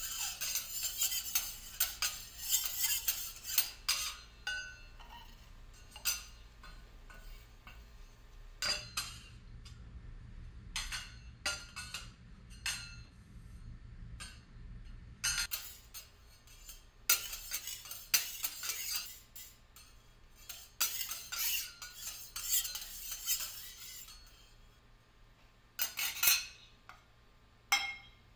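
Metal teppanyaki utensils scraping and clinking against the steel griddle in quick, irregular strokes with short pauses, busiest in the first few seconds and again from about 17 to 24 seconds in.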